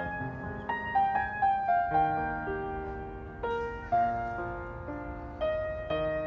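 Background piano music: a gentle melody of single notes, each struck and ringing away, over lower held notes.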